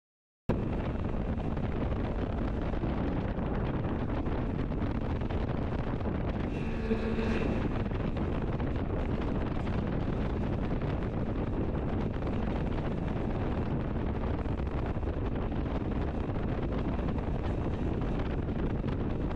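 Wind buffeting the microphone over the steady drone of an outboard-powered speed boat running across the water. The sound cuts out briefly right at the start.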